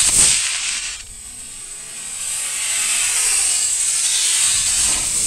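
Model rocket motor firing at liftoff: a loud rushing hiss that fades within about a second. A second, steadier rushing hiss builds up from about two seconds in.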